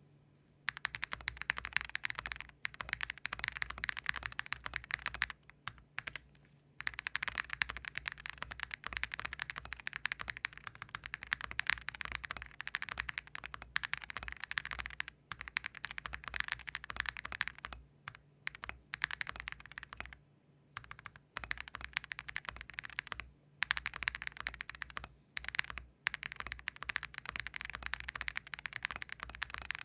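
Meletrix Zoom75 mechanical keyboard with WS Morandi switches and PBT keycaps being typed on quickly in long runs with a few brief pauses. It is built with case and plate foam but no PE foam, and sounds marbly and a bit soft, not loud.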